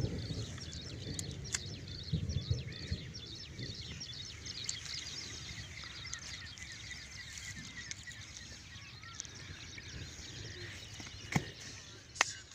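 Open-field ambience of many small birds chirping continuously over a low rumble, with two sharp clicks near the end.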